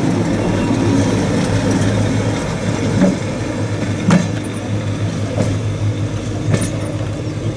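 SNCF X 2800 diesel railcar's engine running steadily with a low hum, slowly fading, with a few short sharp clicks.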